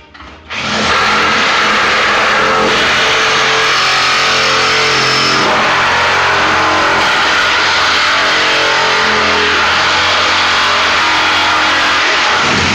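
An electric motor runs loud and steady, starting abruptly about half a second in and cutting off near the end.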